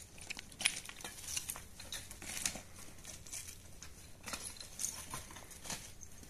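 Dry brushwood and loose stones crackling and clattering in irregular sharp snaps as sticks are gathered and handled on stony ground.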